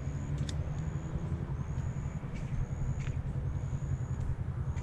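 Steady low rumble that wavers in loudness, with a faint high-pitched chirp repeating about once a second.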